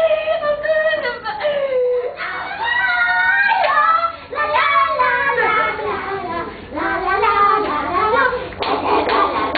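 High women's voices singing and chanting unaccompanied in a sing-song stage delivery, with long held and sliding notes.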